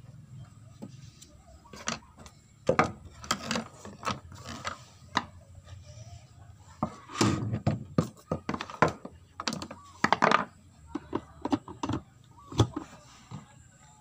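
Irregular knocks, clicks and scraping of plastic and metal parts of a washing machine being handled and screwed back together, loudest in bunches about three seconds in, seven to eight seconds in and around ten seconds in.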